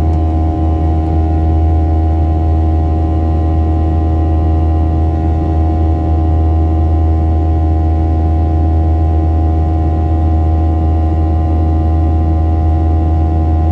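Airliner cabin noise from the turbofan jet engines during the climb: a steady drone with a strong low hum and several fixed whining tones over a haze of rushing air.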